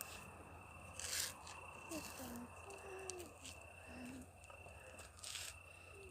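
Faint outdoor ambience: a steady high insect trill, with two brief rustling noises, about a second in and near the end.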